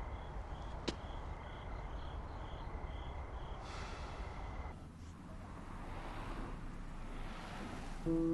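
Night-time ambience: a steady low hum with insects chirping in a quick, regular rhythm, about three chirps a second, which stops about four seconds in. A single sharp click comes about a second in, and soft music with plucked notes begins at the very end.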